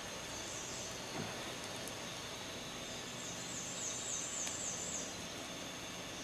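Quiet woodland ambience with a faint steady high tone, and a small bird's thin, high trill of quick repeated falling notes lasting about two seconds, starting about three seconds in.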